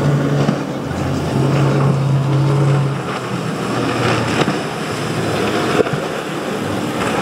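Motorboat engine running with a steady drone over a broad rush of water and wind noise. The engine tone fades about three seconds in, leaving mostly the rush, and there is one sharp knock about six seconds in.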